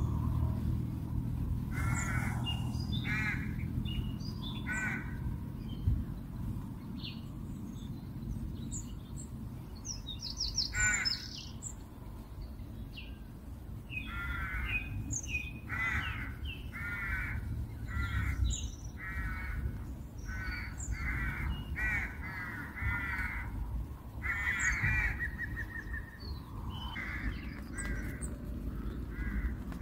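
Crows cawing over and over: a few caws in the first seconds, then a long run of calls through the second half. Smaller birds chirp faintly, and a steady low background noise runs underneath.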